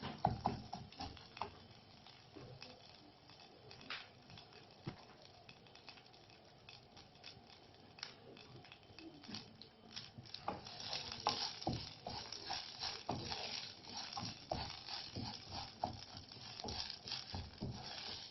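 Flaxseeds popping and crackling in a pan of hot olive oil as they toast, a sign that the seeds are cooking. The pops are sparse at first and grow busier about halfway through.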